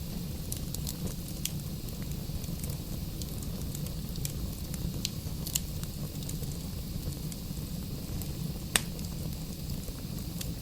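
Wood fire burning in a fireplace: a steady low rumble of the flames with scattered crackles and pops of burning logs, one sharp pop standing out near the end.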